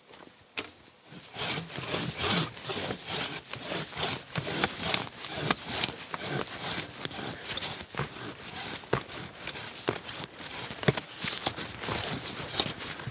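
Hand pruning saw cutting through a branch of an old apple tree, with steady back-and-forth strokes at about two to three a second. It starts about a second in.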